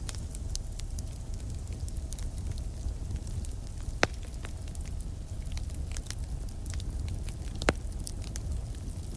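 Campfire burning with a steady run of small crackles over a low rumble. Two louder pops come from the wood, one about four seconds in and one about three-quarters of the way through.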